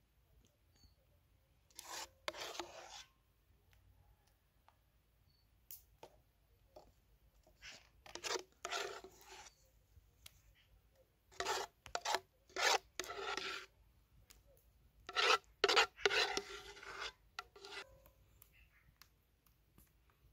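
A metal spoon scraping thick milk porridge from the sides of a metal cooking pot and knocking it off onto metal plates. It comes in four rasping bouts with short clinks, and the pauses between them are quiet.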